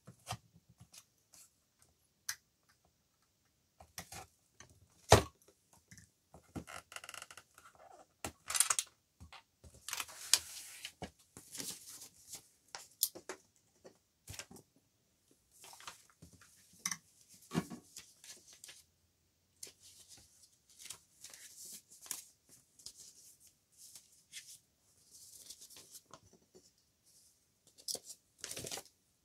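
Paper crafting at a table: sheets of paper rustling and being handled, with scattered sharp clicks and taps of an awl, a plastic piercing guide and a metal binder clip. The loudest single click comes about five seconds in.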